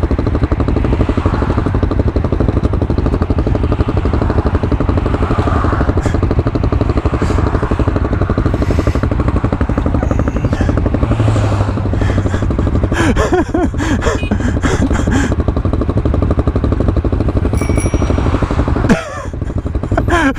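Honda Grom (MSX125) 125 cc single-cylinder engine running steadily under way, its loudness dropping briefly near the end.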